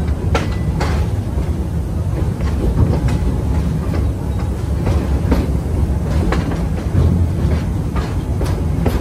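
Park train rolling along, heard from its open-sided passenger car: a steady low rumble with irregular clacks of the wheels on the track.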